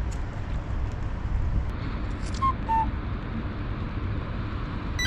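Steady low rumble of outdoor background noise. About halfway through come two short whistle-like notes, the second slightly lower than the first.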